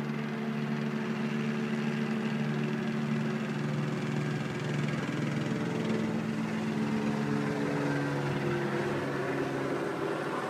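Police helicopter droning overhead, a steady hum whose tones shift slightly in pitch past the middle.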